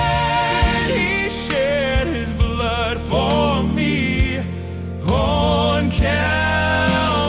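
Gospel song: several voices singing long held notes in harmony, with vibrato and sliding between pitches, over a bass line and occasional drum hits.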